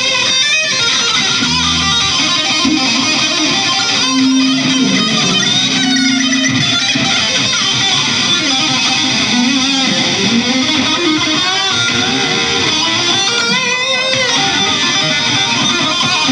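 Electric guitar played through an amplifier, loose improvised lead lines with held notes and string bends.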